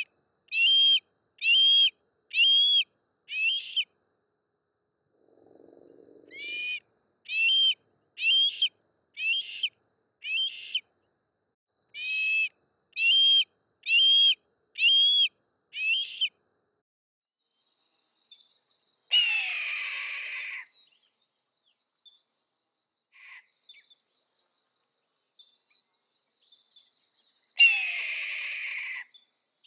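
Red-tailed hawk calling, recorded from a juvenile. First come two runs of short, sharp whistled calls, about one and a half a second. Then, about two-thirds of the way in and again near the end, two longer hoarse screams that fall in pitch.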